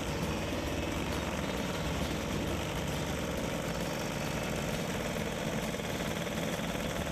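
A stump grinder's 21-horsepower Lombardini diesel engine runs steadily while its carbide-tipped cutting wheel grinds into a tree stump.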